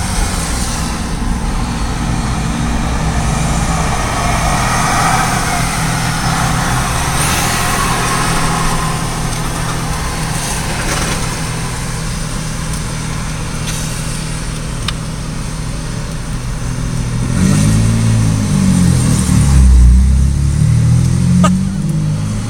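Car engine running steadily under road noise. Near the end the engine revs up and down in several swells, the loudest part, as a car accelerates hard.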